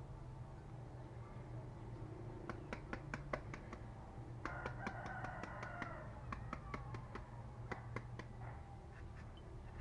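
Meat cleaver blade chopping lightly and repeatedly into a peeled green fruit held in the hand, scoring it into thin strips: a string of sharp, irregular ticks, several a second. A short pitched call sounds in the background about halfway through.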